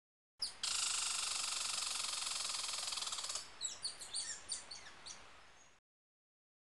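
Bird song: a fast, buzzing trill held for about three seconds, then a run of quick falling chirps that fade away, cut off abruptly near the end.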